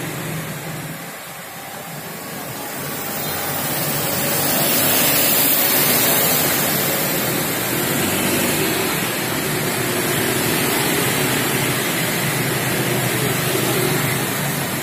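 Steady rushing noise with a faint low hum underneath, swelling a few seconds in and then holding level.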